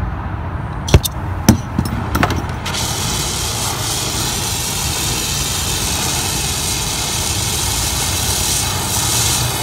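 A few sharp clicks, then from about three seconds in a steady hissing roar that comes on suddenly: a brazing torch lit and burning.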